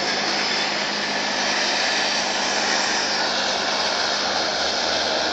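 Steady rushing hiss of aircraft turbine engines running, with a faint low hum underneath.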